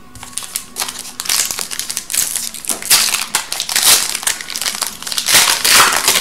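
The wrapper of a hockey card pack being pulled open and crinkled by hand: a dense crackling that comes in several bursts, loudest near the end.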